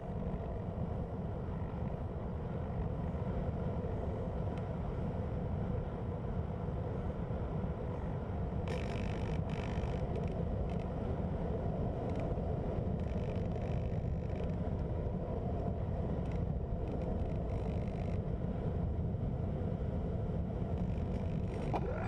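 Steady wind rush and drone of a Hobbyking Cloudsurfer RC plane's electric motor and APC 8x4 propeller in flight, picked up by a camera mounted on the plane.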